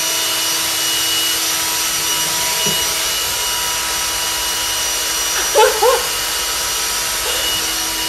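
Robot vacuum cleaner running steadily, a constant motor hum with a high whine. About five and a half seconds in, a short pitch-bending call, the loudest moment, cuts through it.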